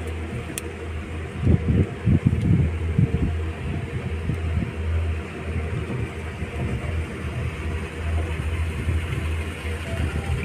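Ropeway cable car cabin travelling along its cable, giving a steady low hum and rumble. A few louder low bumps come about one and a half to three and a half seconds in.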